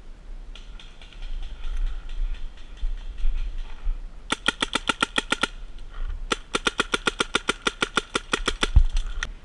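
Paintball markers firing in rapid strings: two fast volleys of sharp pops at about eight to ten shots a second, the first brief and the second about three seconds long, with fainter scattered shots before them.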